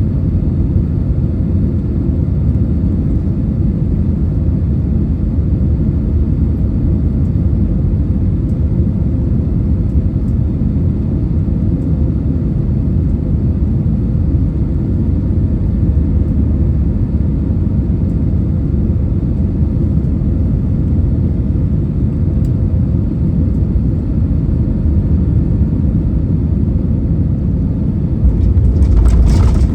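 Steady low rumble of an Airbus A320's engines and airflow as heard inside the cabin. Near the end it suddenly grows louder and harsher.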